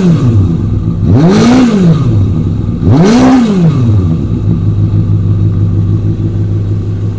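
Kawasaki Balius II's carbureted, water-cooled 250cc inline-four revved through its stock muffler. The tail of one throttle blip falls back, then come two quick blips that rise and fall, before it settles to a steady idle about four seconds in.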